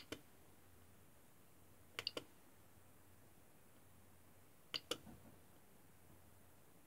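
Push-button rotary encoder knob on a 20x4 LCD controller pressed three times, each press giving a quick, faint double click, while the menus are navigated.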